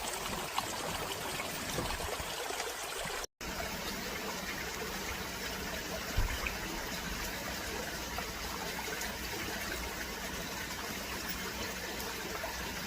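Water boiling in a cast-iron cauldron over a wood fire, a steady bubbling noise that cuts out briefly about three seconds in.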